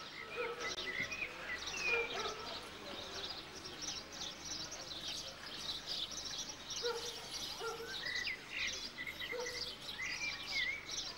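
Small birds chirping in a dense, continuous chatter.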